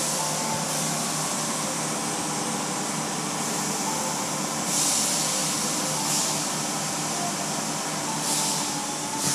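Automatic car wash heard from inside the car: a steady hiss of water spray and wash machinery against the body, with a few louder surges of spray hitting the window, the strongest about five seconds in and again near the end.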